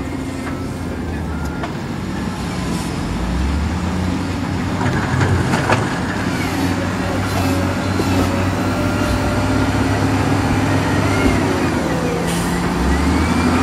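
Heavy diesel engines of an SDLG wheel loader and a dump truck running under load, the engine note rising about three and a half seconds in. There is a sharp knock a little before halfway.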